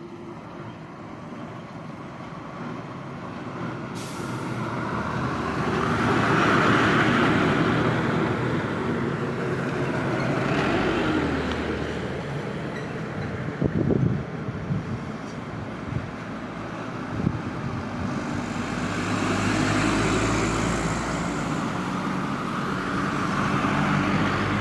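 Heavy road vehicles passing close by, the engine and tyre noise swelling twice, with a few sharp knocks around the middle.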